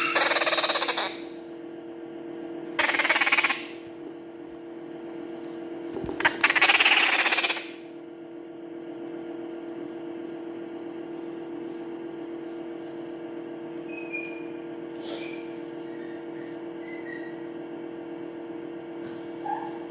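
Parrot chicks giving food-begging calls while being hand-fed: three loud, noisy bursts of about a second each in the first eight seconds, then only a few faint short peeps. A steady low hum runs underneath.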